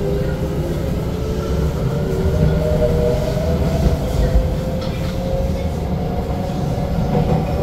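C751B metro train running, with wheel and track rumble and its traction motors whining. The whine climbs slowly in pitch as the train gathers speed.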